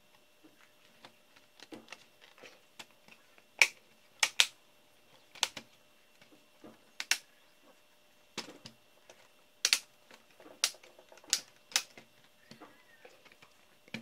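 HP Compaq Presario CQ61 laptop's plastic base and metal frame being handled and shifted, giving about ten irregular sharp clicks and knocks of plastic and metal parts.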